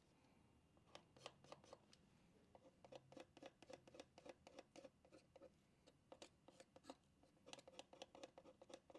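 Faint, quick scratching strokes on a scratch-off verification sticker, its coating being rubbed off to reveal a code.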